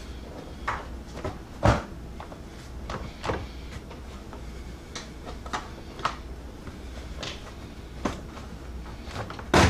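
Scattered, irregular clicks and knocks of the Ford Mustang's plastic interior trim molding being pried and pulled loose by hand, its snap clips letting go. The loudest knock comes about two seconds in.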